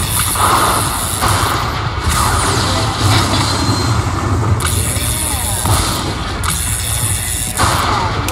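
Lightning Link slot machine playing its electronic music and sound effects over a heavy bass, in short phrases that cut off and restart every second or so.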